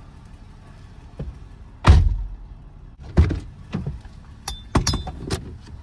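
A handful of knocks and thuds in a pickup truck cab as a person climbs out through the open passenger door, the loudest about two seconds in and the rest spread over the next few seconds.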